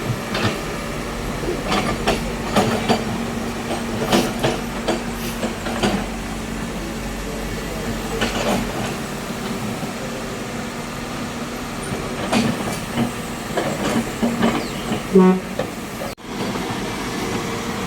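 Heavy construction machinery running with a steady low hum, and irregular metallic clanks and knocks throughout.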